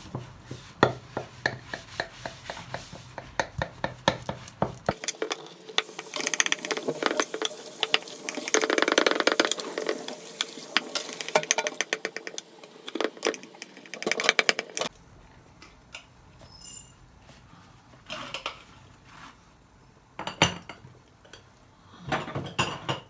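Dishes and cutlery clinking and clattering: many quick knocks for about fifteen seconds, then a few scattered clinks.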